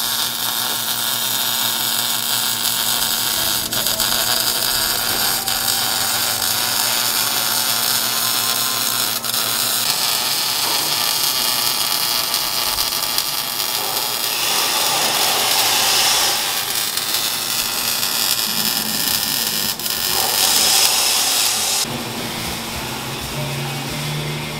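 Arc welding on a truck's new exhaust pipes and X-pipe: a steady, loud hiss with a faint hum beneath. It swells a couple of times and drops away shortly before the end.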